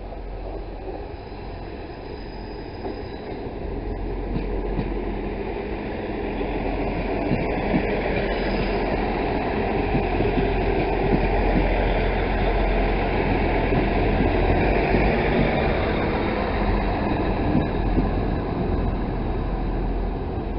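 South West Trains Class 159 diesel multiple unit running along the platform road, the rumble of its underfloor diesel engines and wheels on the rails growing louder over the first dozen seconds and then holding steady.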